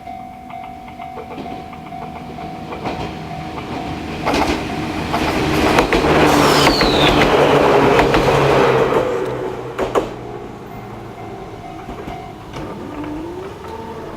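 Level-crossing alarm ringing with the JR East Tohoku-type electronic tone while a Joshin Electric Railway train passes, wheels clicking over the rail joints. The train is loudest from about four to ten seconds in, and the alarm stops about twelve seconds in. A rising whine follows near the end.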